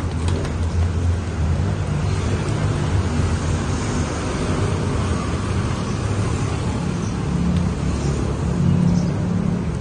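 Steady low rumble of road traffic, with a vehicle engine's hum swelling about a second in and again near the end.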